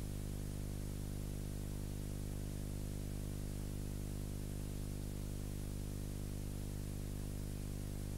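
Steady electrical hum with a buzz of evenly spaced overtones, under a constant hiss: the noise floor of a silent film's transfer, with no sound from the scene itself.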